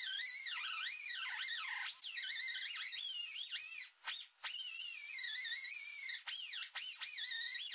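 Pneumatic right-angle grinder with an abrasive pad whining, its pitch sagging and recovering as it is pressed onto the aluminium propeller to strip the paint. It cuts out briefly a few times, first about four seconds in.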